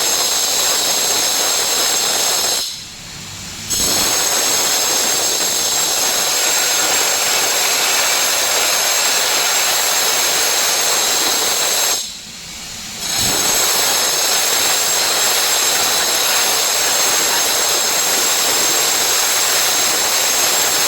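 Air rushing out of an HVAC duct dropper outlet while the air washer's blower runs: a loud, steady hiss. It drops away suddenly twice for about a second, about three seconds in and again about twelve seconds in.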